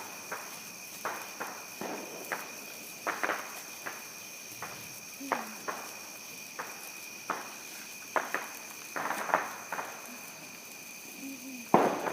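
Small consumer fireworks popping and crackling at irregular intervals, with a sharper crack near the end. Crickets trill steadily underneath.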